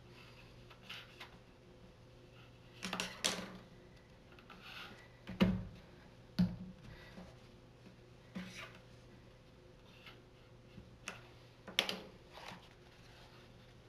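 Scattered light taps and clicks of craft tools and cardstock being handled on a wooden tabletop, with two louder knocks about five and a half and six and a half seconds in, over a faint steady hum.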